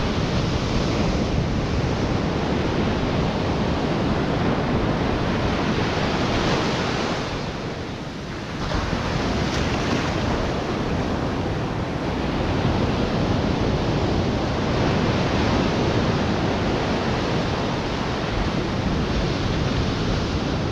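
Atlantic surf breaking and washing up a sandy beach in a steady wash of noise, easing briefly about eight seconds in, with wind buffeting the microphone.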